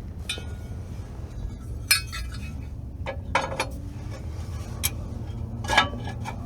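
Metal hand tools and hardware clinking: about five separate sharp clinks, each with a short ring, over a low steady hum.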